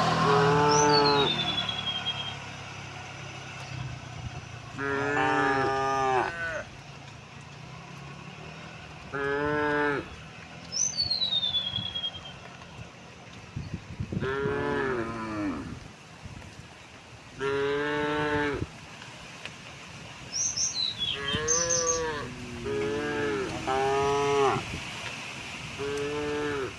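Cattle mooing repeatedly: about nine calls of roughly a second each, a few seconds apart, coming closer together and overlapping near the end.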